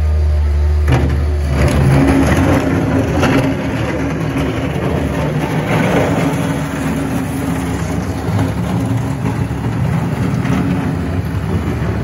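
2003 Mustang 2054 skid steer's diesel engine running as the machine drives and turns on its wheels. The engine note picks up about a second in, and a few knocks sound from the machine as it moves.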